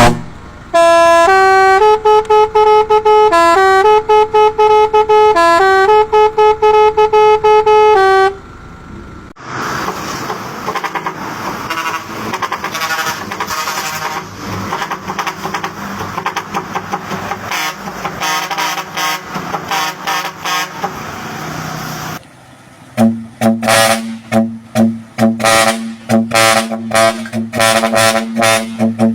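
Long trumpet-style vehicle air horns ('4ft horns') sounding. One plays a tune in loud held notes that step up and down, a quieter noisier stretch follows, and near the end a horn sounds in quick rhythmic blasts.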